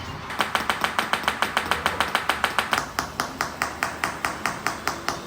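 A rapid, even train of sharp mechanical clicks from a small model machine, about six a second, starting suddenly about a third of a second in.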